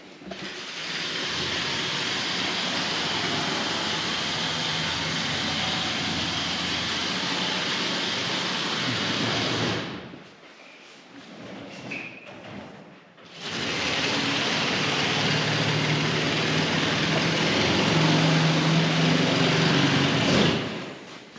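A power cutting tool running in two long stretches, about ten seconds and then seven, with a short pause between.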